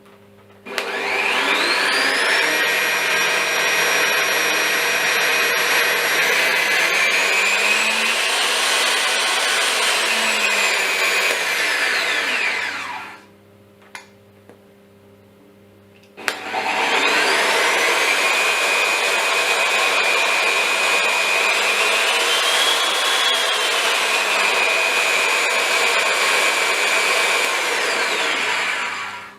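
RUKO RS 125 e pillar drilling machine running up with a rising whine, running steadily with a shift in pitch partway through, then spinning down. This happens twice, with a pause of about three seconds between runs.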